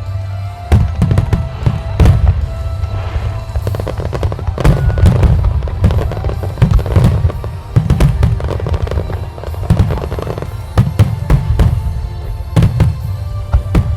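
Fireworks shells bursting in quick succession, with many deep booms and sharp cracks, over music playing.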